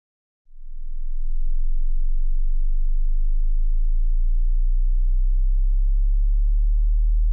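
Very low-pitched pure sine test tone for a hearing test, fading in about half a second in and then holding steady.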